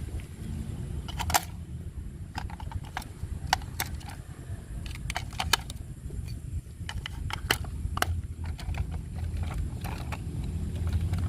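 Irregular sharp clicks and taps, a dozen or more scattered through, over a steady low rumble.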